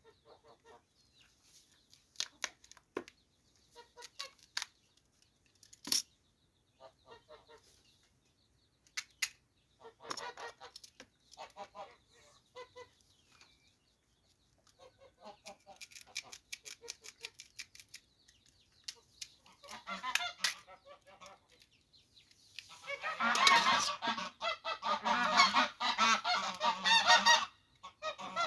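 Domestic fowl calling, building to a loud, dense run of calls in the last few seconds. Earlier there are a few sharp clicks from a knife cutting sweet potatoes.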